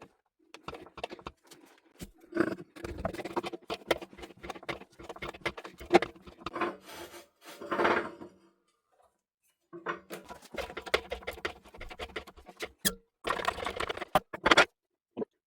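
Workshop handling noise: irregular knocks, clicks and scraping as material and tools are worked by hand, broken by a brief silence about halfway through.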